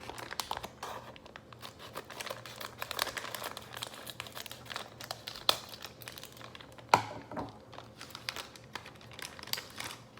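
MRE accessory packet being torn open and its plastic wrappers crinkled and rustled as the small items inside are handled, with a few sharper snaps of plastic.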